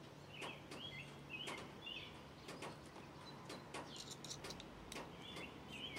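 Faint bird-like chirps in short runs about half a second apart, mixed with scattered light clicks and taps of small objects being handled.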